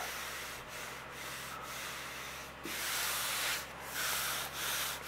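A bare palm rubbing back and forth over a sanded, primer-dusted steel body panel with patches of body filler, a dry rasping hiss, feeling the surface for high spots in the filler. Several strokes, the louder ones in the second half.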